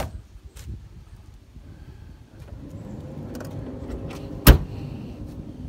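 Glass rear hatch of a 1979 Pontiac Trans Am slammed shut: a single sharp, loud bang about four and a half seconds in, after a few light clicks and over a low steady hum.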